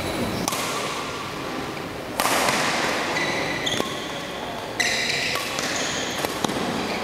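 Badminton rally: sharp racket strikes on the shuttlecock every second or two, with short high squeaks of shoes on the court mat.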